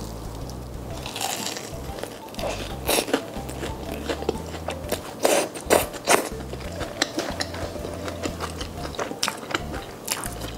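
Crunching bites into a crispy fried chicken cutlet taco, then chewing: a run of sharp crackling crunches, loudest about three and five to six seconds in, over background music with a steady low beat.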